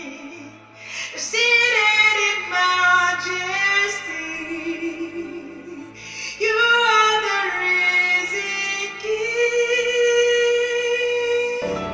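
A woman singing a worship song, with held and sliding notes over a soft, steady accompaniment. The singing stops just before the end as the music changes.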